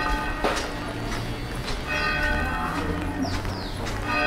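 Church bell tolling slowly, struck about two seconds in and again near the end, each stroke ringing on until the next.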